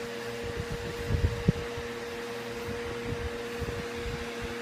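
Steady background hum with a single held tone. A few soft low knocks from handling come about a second in.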